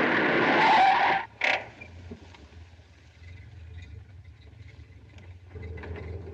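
Car tyres screeching for about a second, cut off sharply, then a brief loud burst of noise. A low steady car engine hum follows, and wind gusting comes up near the end.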